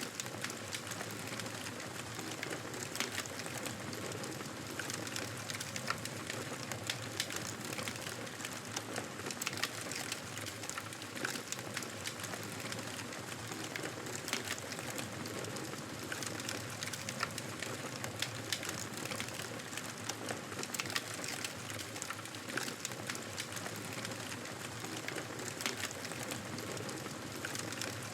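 Wood fire burning: a steady crackle with many small, sharp snaps at irregular intervals.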